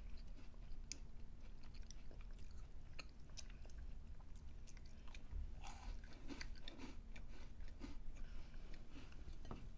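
Chewing of a cookie and other food, with scattered small sharp mouth clicks.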